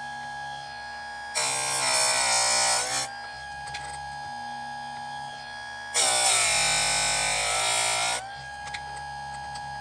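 Electric chainsaw sharpener motor running with a steady whine. The spinning grinding wheel is lowered onto a chain tooth twice, about a second and a half in and again about six seconds in. Each grind lasts around two seconds, and the whine drops in pitch under the load, then climbs back as the wheel is lifted.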